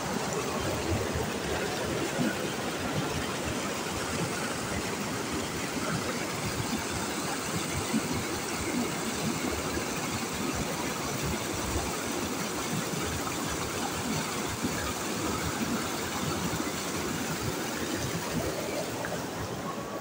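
Shallow rocky river running over stones and small rapids: a steady rush of water.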